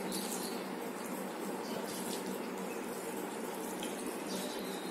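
A steady rushing hiss like running water, with a few faint soft squishes of fingers mixing rice on a plate.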